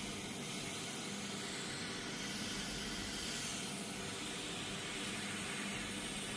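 Steady hiss of air flowing through a premature baby's breathing-support mask, with a faint low hum underneath.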